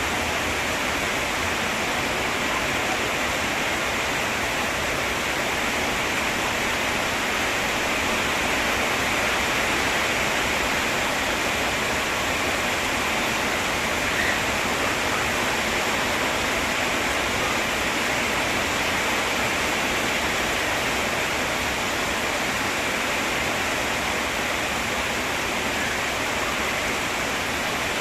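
Steady rainfall, a dense, even hiss that keeps up without a break.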